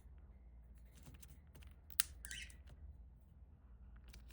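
Light scattered clicks and taps, with a sharp click about two seconds in followed by one short bird squawk that falls in pitch.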